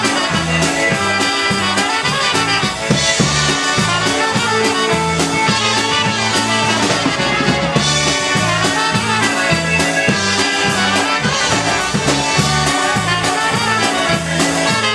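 Live polka band playing an instrumental passage without vocals, over a steady bouncing bass line.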